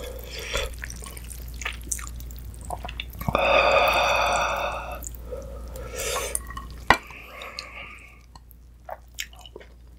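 Ramyun noodles pulled up out of a bowl of broth with chopsticks, broth dripping and splashing back into the bowl, louder for a moment about three seconds in. Small clicks of chopsticks and spoon throughout, with one sharp knock about seven seconds in.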